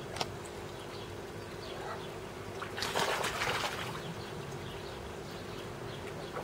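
Koi splashing at the surface of a garden pond as they crowd together during spawning, one brief splash about three seconds in, with small water sounds around it. A steady low hum runs underneath.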